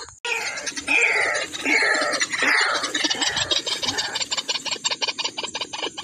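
White-breasted waterhen calling: harsh, rasping croaks for the first few seconds, then a fast, even run of clicking pulses, about eight a second.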